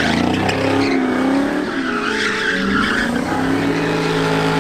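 A car engine revving up and down with tyres squealing as they spin on the pavement in a burnout. Near the end the engine holds at steady revs.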